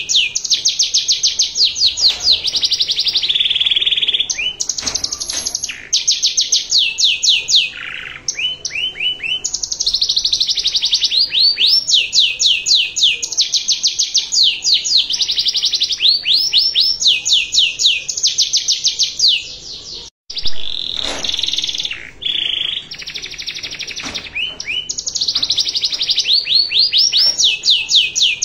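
Domestic canary singing a long, fast song: trills of rapidly repeated sweeping notes, many per second, alternating with short held tones. A brief sudden gap breaks the song about twenty seconds in.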